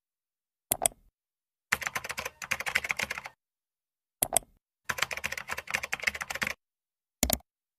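A single mouse click, then a quick run of computer keyboard typing. A second click and another run of typing follow, and one last click comes near the end.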